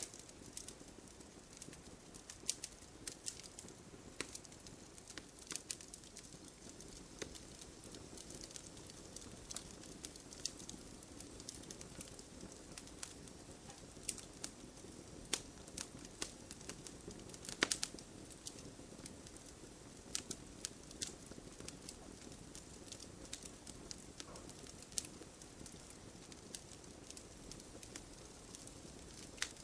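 Fire crackling: irregular sharp pops and snaps, a few clustered more densely near the middle, over a low steady hiss.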